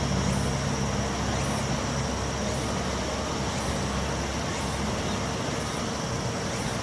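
EF64 electric locomotive standing with its equipment giving a low steady hum, which fades a few seconds in. A steady high-pitched tone and a faint pulse about once a second run underneath.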